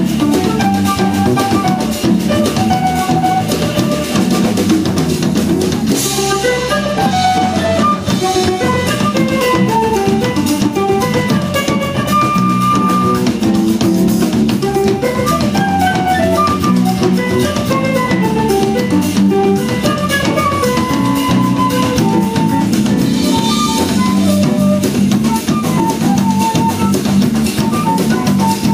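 A small jazz band playing a baião live, with a drum kit keeping the beat and one instrument soloing in a running line of quick notes.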